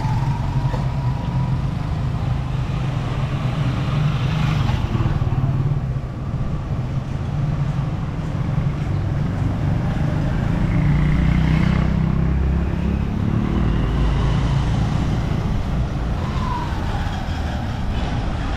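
Street traffic of small motorcycle and tricycle engines running and passing, a steady low rumble that grows louder about ten seconds in and eases off again a few seconds later.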